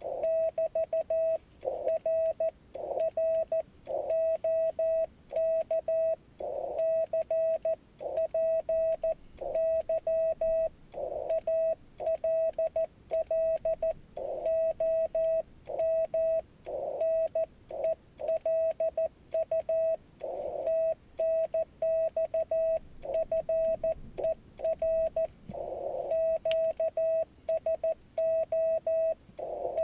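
Morse code (CW) tone from a Yaesu FT-817D transceiver: a single steady beep keyed on and off in dots and dashes at a slow speed, with a few brief hissy patches around the tone.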